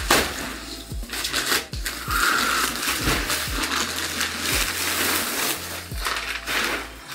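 Plastic mailer bag crackling and rustling as it is torn open and handled, with many sharp crackles. A background music beat with a low kick drum about once a second runs underneath.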